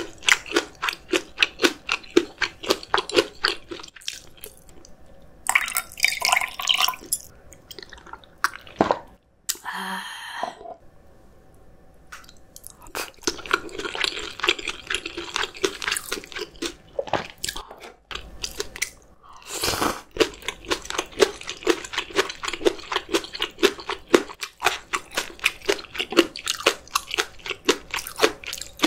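Close-miked chewing and crunching of spicy steamed monkfish with bean sprouts: rapid crisp crunches in long runs, broken by a couple of quieter pauses.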